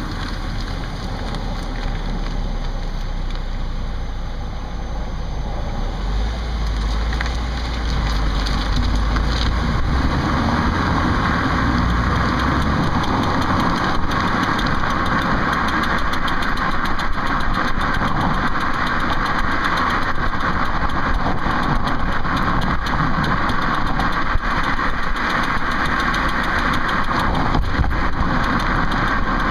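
2008 Ford Focus running, with a fast, steady clicking from the back wheel whose cause the owner cannot find. The sound grows a little louder about eight seconds in.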